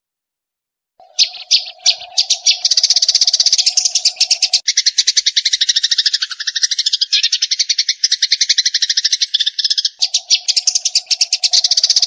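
Small songbird singing a long, rapid pulsing trill of closely spaced notes that starts about a second in. A steady lower drone runs beneath it, dropping out for a few seconds in the middle while the trill dips lower.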